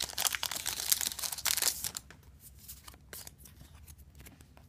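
Foil trading-card booster pack being torn open and crinkled in the hands, a dense crackling for about two seconds, then only a few faint rustles and clicks.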